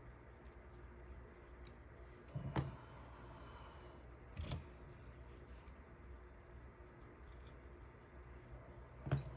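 A few short metallic clicks and taps of a dimple lock cylinder and its small pins being handled while it is taken apart: three distinct clicks, about two and a half seconds in, about four and a half seconds in and near the end, over a faint steady hum.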